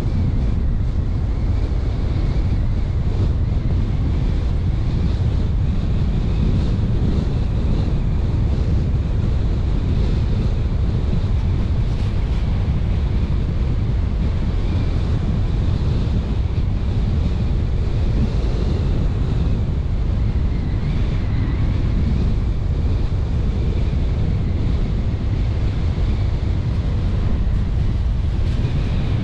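Steady rumble of a car driving along the road, with wind rushing over the microphone on top of tyre and engine noise.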